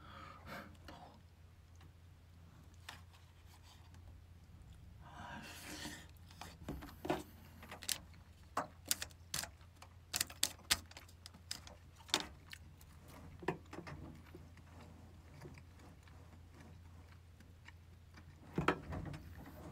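Faint rustling and a run of light, irregular clicks as a paper napkin is handled at a table, over a low steady hum. The clicks cluster in the middle of the stretch and thin out near the end.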